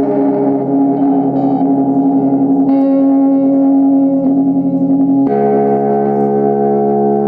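Music: long held chords played on an electric guitar through effects, ringing and sustained, changing chord about a third of the way in and again past two-thirds.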